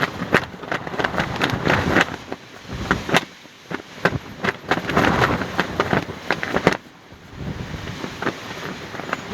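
Fabric flapping and snapping in a strong wind: irregular sharp cracks over a rushing wind noise on the microphone. The flapping is busiest in two spells and eases off after about seven seconds.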